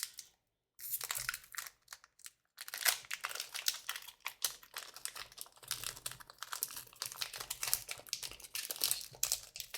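Foil trading-card pack wrapper crinkling and tearing as it is opened by hand: a dense run of crackles that stops briefly twice in the first few seconds, then continues.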